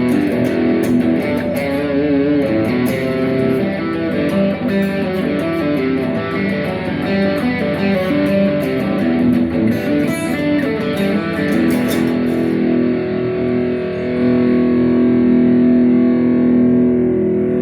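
Rock music led by electric guitar, playing quick changing notes that settle about two-thirds of the way through into a long held chord.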